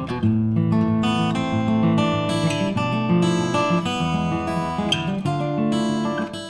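Background music played on acoustic guitar, with strummed chords and changing notes at a steady level.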